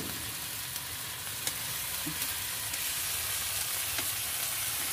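Chicken pieces sizzling steadily in a frying pan over a wood fire, in their marinade with a cup of water just added. A few light clicks come from chopsticks stirring the meat.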